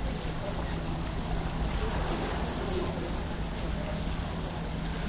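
Steady rush of water with no distinct events, over a low steady hum.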